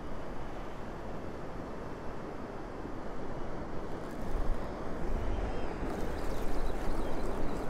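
Wind buffeting the microphone over the steady wash of surf on a beach, with the low rumble of a stronger gust about four seconds in.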